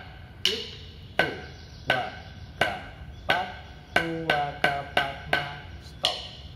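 Wooden drumsticks striking a rubber practice pad in single strokes: five even strokes, then a quicker run of five. The phrase ends with one click of the sticks struck together overhead.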